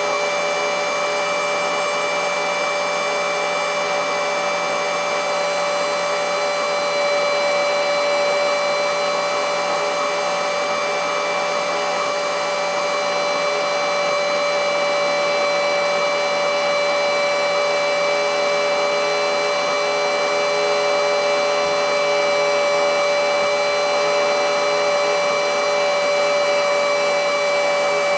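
Battery-powered mini handheld blowing/sucking vacuum cleaner (XCQ-508) running continuously with a steady, loud whine. Its battery is near the end of its charge and the motor is losing power.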